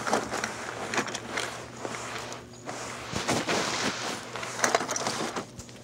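Footsteps of a person walking, uneven soft thuds with some rustling in between.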